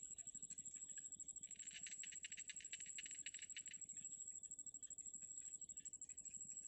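Faint, rapid chittering of downy cinnamon bittern chicks in the nest. It is loudest from about one and a half to four seconds in, over a steady high whine.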